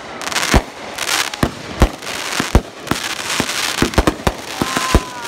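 Aerial fireworks going off: a quick, uneven string of sharp bangs with crackling hiss between them, and a short whistling tone near the end.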